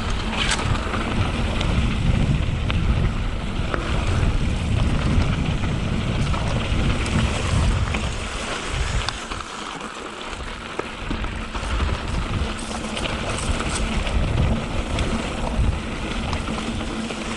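Wind rushing over the microphone and knobby tyres rumbling on a dirt trail as a Canyon Spectral 7 mountain bike descends, with short rattles and clicks from the bike over bumps. The rush eases for a couple of seconds about halfway.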